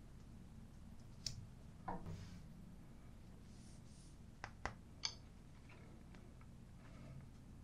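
Quiet room tone with a handful of faint, short clicks and taps, like small objects being handled.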